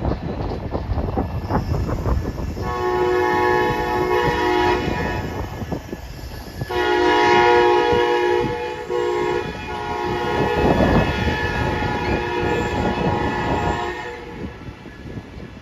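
Amtrak passenger train's air horn sounding in long chord blasts, the first about three seconds in, the second about seven seconds in, and a third running on until near the end. Strong wind buffets the microphone throughout.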